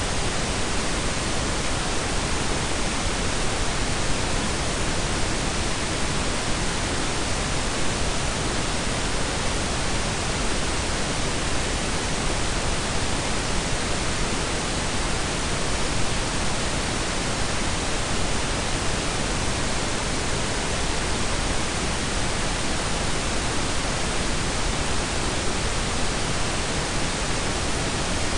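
Steady synthetic pink and brown noise blended together: an even, unchanging hiss with a deep rumble underneath.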